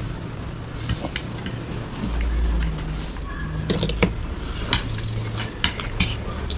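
Forks and spoons clinking and scraping on plates while eating noodles and dumplings, in a string of short, irregular clicks.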